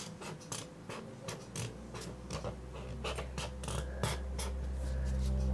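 Felt-tip marker drawing on paper: many short scratchy strokes as a star is drawn. A low steady hum builds up under it in the second half.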